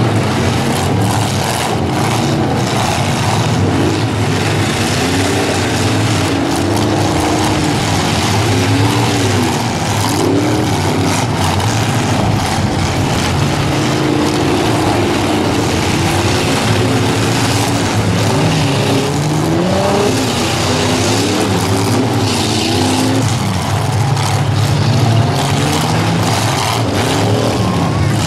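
Several demolition derby cars' engines revving up and down at once, with the thuds and crunches of cars ramming each other scattered throughout.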